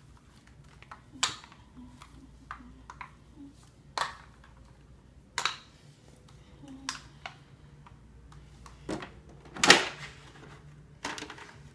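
Plastic toy camper and dolls being handled: scattered light clicks and knocks, then a louder, longer knock near the end as the camper's swimming-pool section is pulled out.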